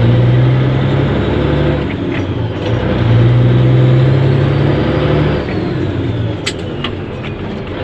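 Caterpillar diesel engine of a Peterbilt semi tractor, heard from inside the cab, pulling steadily under load. It drops off for about a second about two seconds in, pulls again, then eases off near the end, with a couple of sharp clicks late on.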